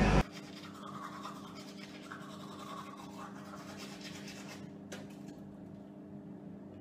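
Manual toothbrush scrubbing teeth, a soft scratching over a steady low hum. A brief loud burst of crowded-room noise cuts off just after the start.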